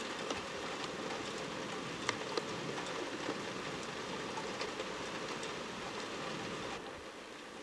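Steady rain falling, an even hiss with scattered sharper drips through it, easing slightly near the end.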